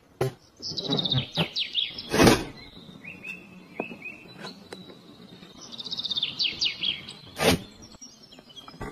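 A songbird singing in runs of quick falling trills, about a second in and again near six seconds, with a few short chirps between. Sharp clicks and knocks are heard too, the loudest about two seconds in and just past seven seconds.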